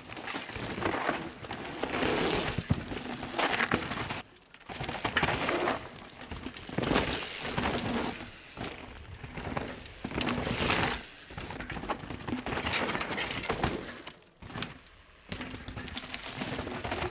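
Mountain bike ridden fast down a dry dirt trail: tyres crunching over dirt, roots and rocks, with clattering knocks from the bike. The noise comes in uneven surges and drops away briefly twice.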